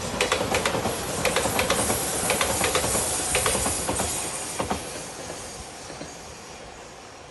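Express train passing close by: a steady rush of wheels and air, with a high hiss, and many sharp clacks as the wheels cross rail joints. The clacks stop after the last car goes by, about four and a half seconds in, and the sound then fades as the train draws away.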